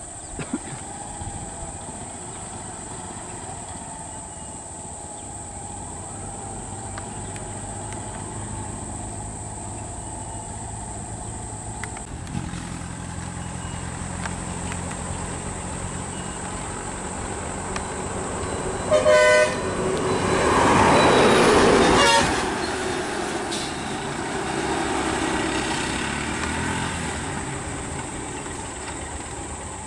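Vehicle engines idling on a road, with a short horn blast about two-thirds of the way through. Right after it comes the loudest part, a rushing surge of engine noise for about two seconds that stops abruptly, followed by a lower engine rumble.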